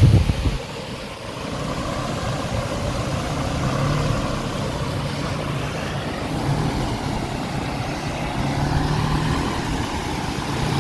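Nissan March's engine running under throttle, with the revs swelling now and then as the small hatchback struggles on a muddy road. A brief low thump comes right at the start.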